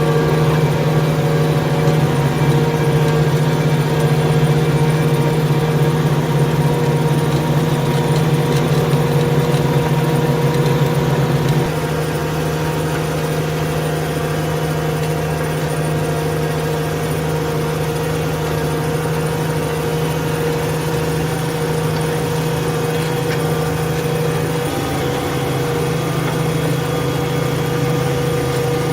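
New Holland T7.210 tractor engine running steadily under load while ploughing, a continuous drone that drops a little in level about twelve seconds in and shifts slightly in note near the end.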